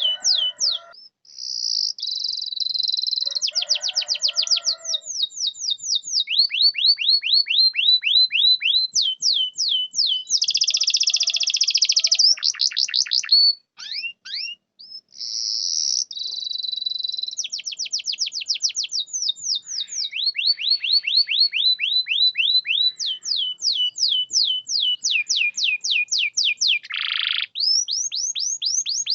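Domestic canary singing a long, varied song of rapid repeated phrases: runs of quick downward-sweeping notes, several a second, alternating with buzzy trills and short held notes, with one brief pause about halfway.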